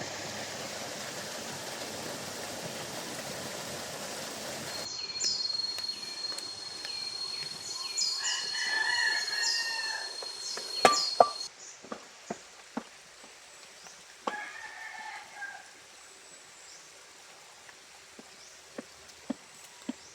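A rooster crowing twice, first about 8 seconds in over a steady high whine and again around 14 seconds. Before it comes a steady rushing noise, and two sharp clicks near 11 seconds are the loudest thing. Scattered light taps follow.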